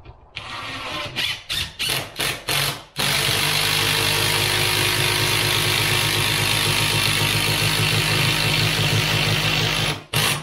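Cordless impact driver driving a 6.5-inch GRK structural bolt through a steel strut channel into a wooden wall stud. A few short trigger bursts come first, then a continuous hammering run of about seven seconds that cuts off near the end, with one more brief burst at the very end.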